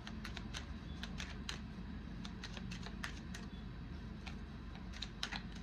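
A deck of cards being shuffled by hand: irregular light clicks and snaps as the cards slip and slap together, bunching up near the end.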